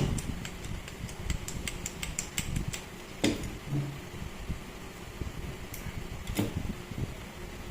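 A steady fan-like whir with a run of light clicks and two sharper knocks, about a third and two-thirds of the way through, as of small parts being handled.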